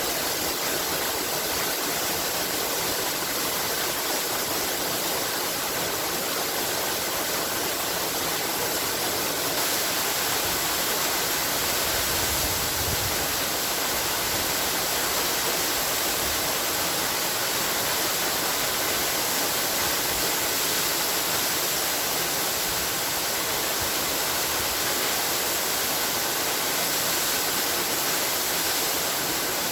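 Waterfall: water pouring and splashing in a steady, unbroken rush, with a lot of hiss.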